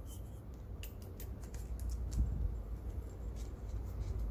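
Light, irregular clicks and rubbing from a Yihua 907A soldering iron handle and its cable being handled, over a low steady hum.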